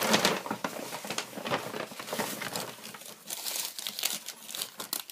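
Paper being handled: irregular crinkling and rustling as it is unfolded and sorted through.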